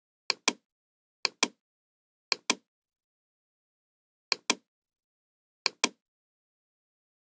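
Computer mouse clicking in quick pairs, five times, each pair two sharp clicks.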